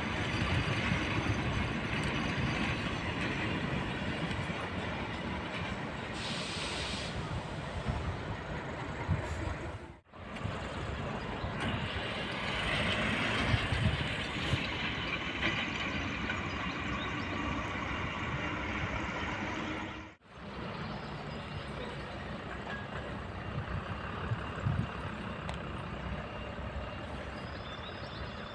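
Yellow track-maintenance rail vehicle, a motor trolley with flat wagons, running along the tracks with steady engine and wheel noise. The sound cuts out briefly twice, about ten and twenty seconds in.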